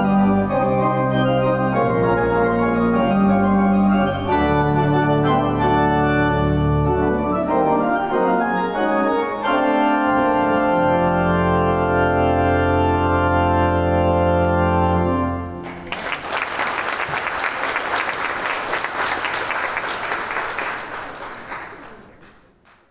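Church organ playing the postlude: sustained chords over low bass notes, ending on a long held final chord about fifteen seconds in. Applause follows and fades away near the end.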